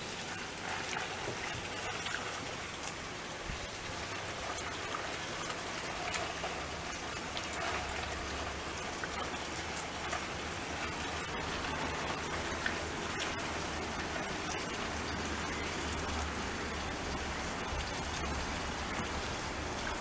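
Steady hiss of rain falling, with a low rumble underneath from about eight seconds in.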